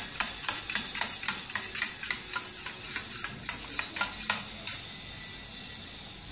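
Metal spoon stirring sauce in a small steel bowl, clinking against the bowl's sides about four times a second. The clinking stops about three-quarters of the way through.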